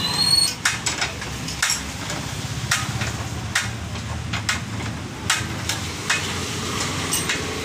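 Spanner work on a Hero Honda Passion Plus motorcycle's rear wheel axle nut: irregular metal clicks and knocks as the wheel is undone, over steady background noise.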